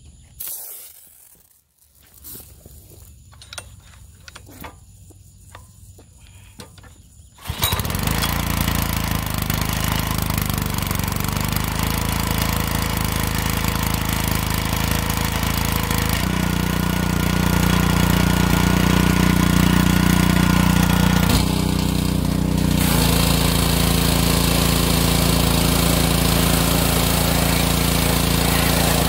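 Troy-Bilt pressure washer's Honda 5.0 small engine starting up suddenly about seven seconds in, then running steadily under spraying, its note shifting for a few seconds in the middle.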